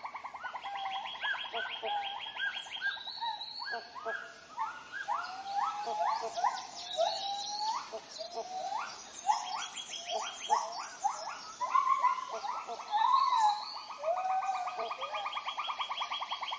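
Tropical rainforest animal chorus: a fast, continuous pulsing trill with many short rising whistled calls over it, busiest in the middle stretch.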